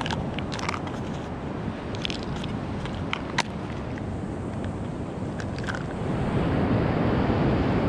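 A few sharp clicks of a small plastic find box being opened and snapped shut. Then sand crunches and scrapes as a sand scoop pushes it back into a dug hole, louder near the end.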